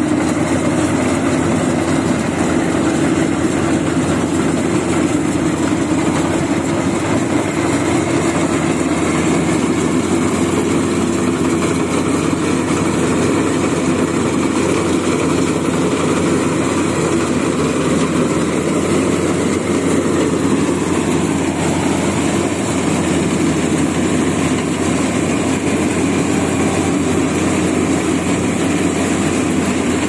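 Maxxi Bimo 102 rice combine harvester's engine running steadily, with the machinery turning continuously.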